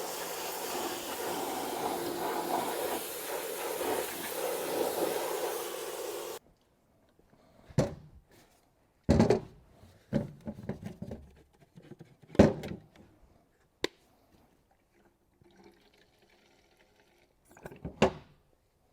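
CAT skid steer's diesel engine running steadily, then cutting off abruptly about six seconds in. Several short, separate knocks and clanks of metal and tools follow in the quiet.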